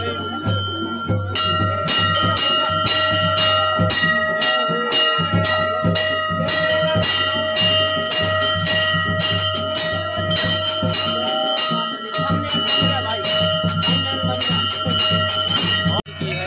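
Brass temple bells ringing continuously, struck rapidly about four times a second so that the ringing never dies away, over a low rhythmic drumbeat.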